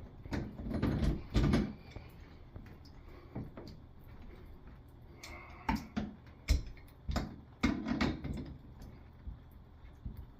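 Tools and hands working on a faucet to get the old cartridge out: irregular knocks and clicks, with two spells of scraping, one near the start and one about eight seconds in.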